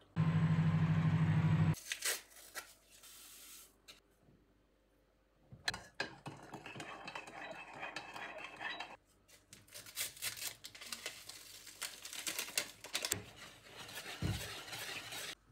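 A loud steady hum for under two seconds that cuts off suddenly. Then a metal spoon stirs in a ceramic mug, scraping and clinking, and then a metal utensil stirs dry flour in a plastic bowl with quick scrapes and clicks.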